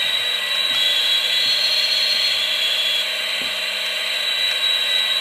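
MRC model-locomotive sound board playing its EMD 645 diesel engine sound at full throttle through a small speaker, a steady revving drone with a thin, shrill edge.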